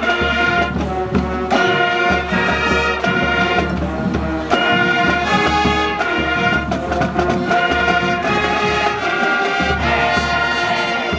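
Brass band playing a tune, horns holding notes over a steady low beat.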